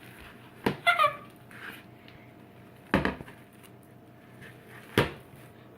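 Sticky homemade fluffy slime being squeezed and pulled apart in bare hands, giving three sharp wet smacks about two seconds apart. About a second in, a girl lets out a brief high squeal.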